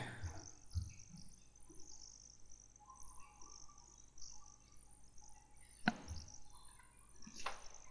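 Quiet room tone with a faint high hiss, broken by one short sharp click just before six seconds in.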